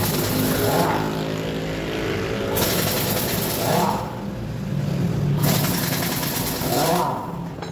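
A motor or engine running, swelling to a loud rushing noise for a second or so about every three seconds.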